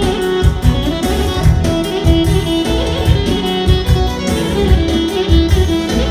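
Live band playing an instrumental passage of Albanian wedding music: a violin melody over guitar and a steady, heavy bass beat.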